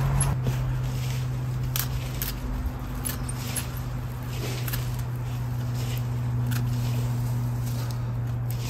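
Snips of a hand pruning tool cutting back daisy stems, irregular sharp clicks about one every second or so, over a steady low hum.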